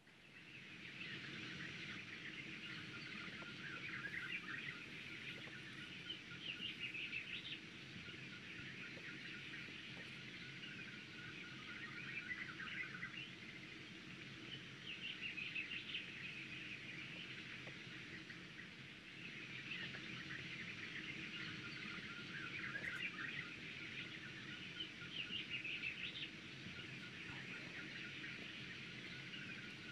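Recorded soundscape of many birds chirping, swelling and fading in waves every few seconds over a low steady rumble. It fades in at the start as a theatre sound cue.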